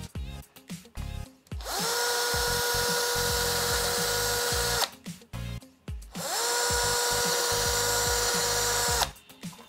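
Cordless drill boring two holes into the wall, two runs of about three seconds each: each spins up to a steady whine, then cuts off. Background music with a beat plays underneath.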